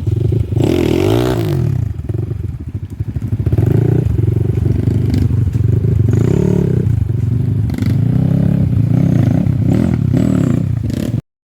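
Dirt bike engine revving up and down over and over, with some clatter and scraping. The sound cuts off abruptly near the end.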